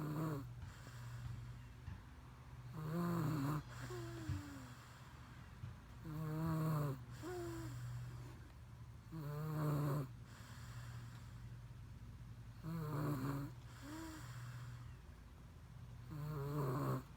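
Snoring in slow, regular breaths: six loud rasping snores, one about every three and a half seconds, each followed by a shorter, softer breath sound.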